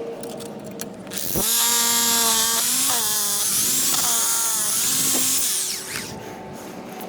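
Power drill starting up about a second in and running for about four and a half seconds with a steady whine and hiss. Its pitch dips briefly a few times as it takes load, then it stops.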